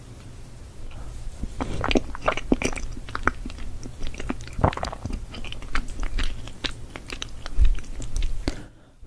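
Close-miked eating: a large mouthful of food being bitten and chewed, with many irregular crisp crunching clicks, busiest in the first half.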